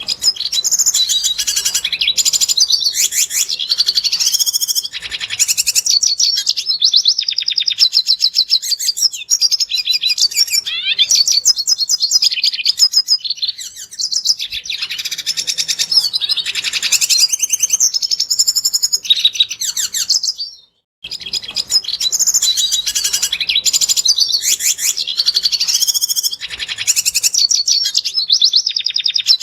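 Red siskin singing a fast, high-pitched twittering song of chatter and trills, almost without pause. It breaks off for a moment about two-thirds of the way through, then starts again.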